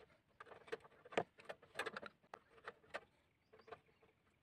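Faint, irregular metal clicks and taps of a 10 mm spanner working a screw on the side of a small engine.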